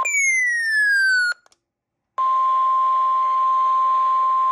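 A falling electronic tone glides down for about a second and stops. After a short gap, the NOAA Weather Radio's steady 1050 Hz warning alarm tone sounds over radio hiss, the signal that an alert broadcast is about to follow.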